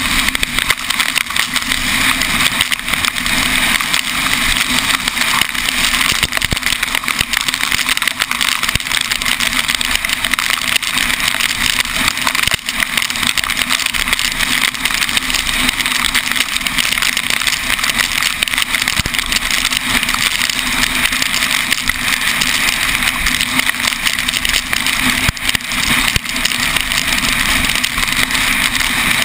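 Steady rushing wind and road noise of a moving vehicle, picked up by a camera mounted outside on its roof, with fine ticking that fits raindrops striking the camera.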